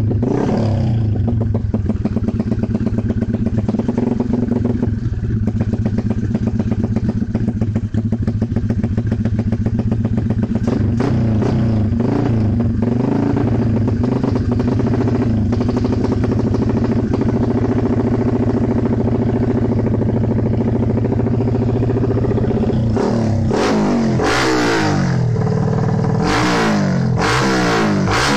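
Modified Yamaha Exciter motorcycle engine with a 62 mm big-bore kit, a single-cylinder four-stroke, idling steadily with a fast, even firing beat. Near the end it is revved up and down several times in quick blips.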